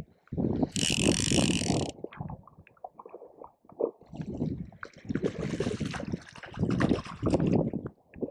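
Fly reel ratchet clicking as a hooked fish is played, loudest and fastest for about a second near the start, with wind buffeting the microphone in gusts.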